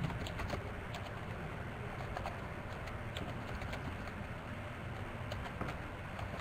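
Computer keyboard keys being typed, irregular light clicks several times a second, over a steady low background hum.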